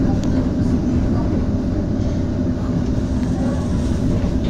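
HTM GTL8 electric tram running between stops, heard from inside the passenger cabin: a steady rumble of the wheels on the rails with a steady hum from the drive.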